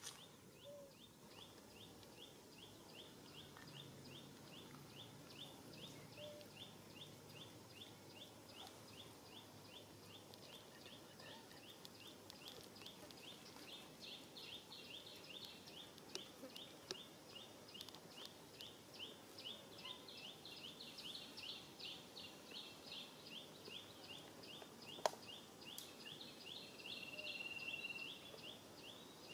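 Faint, steady, fast high-pitched chirping, several short pulses a second, growing louder in the second half, with a held high note near the end and a single sharp click a few seconds before it.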